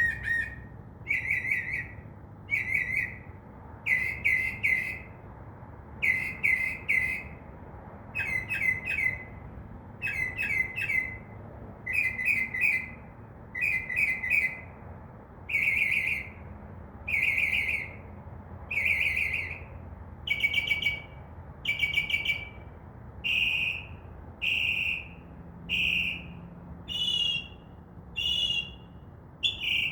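Northern mockingbird singing: short phrases of quick, high notes, each repeated over and over about once a second, switching to a new phrase type a few times.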